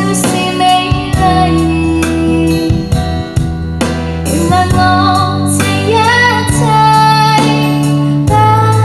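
Music: a slow song with a female voice carrying a wavering melody over held bass notes.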